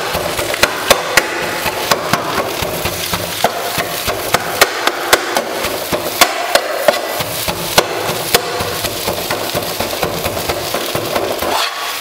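Steel tumbler pounding shredded parotta and egg against a hot kadai: repeated sharp, irregular metal knocks, about two a second, over a frying sizzle. This is kothu parotta being chopped into fine bits.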